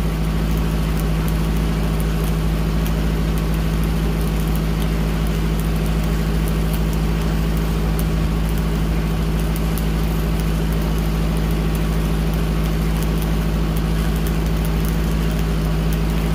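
Steady hum of a Lincoln Pipeliner 200D engine-driven welding machine running under load, with the faint, irregular crackle of a stick-welding arc as an uphill root bead is run with a 7016 rod on 2-inch pipe.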